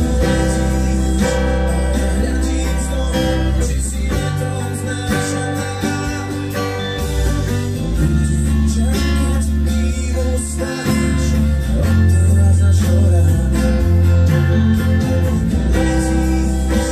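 Steel-string acoustic guitar strummed and picked, playing a steady run of chords with ringing bass notes.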